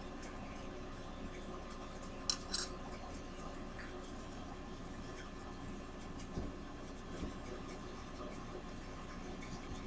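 Quiet room tone with a few small handling noises from a picture frame being picked up, tilted and set against the table: two sharp clicks a little over two seconds in, then softer bumps around six and seven seconds.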